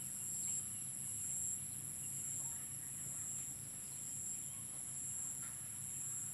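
Insects trilling steadily: a continuous high-pitched drone that swells and eases every second or so, over a faint low hum.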